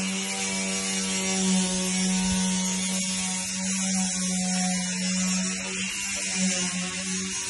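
A steady low buzzing hum from a motor or machine, unbroken throughout, with a constant high hiss over it.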